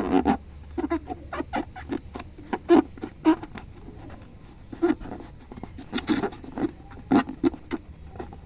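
Slime being squeezed and mixed by hand, giving irregular short squishing clicks and pops.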